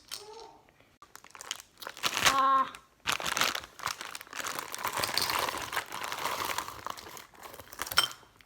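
Plastic wrapper crinkling as it is handled, in a dense crackle lasting about four seconds. A short voice sound comes just before it, and a few sharp clicks near the end.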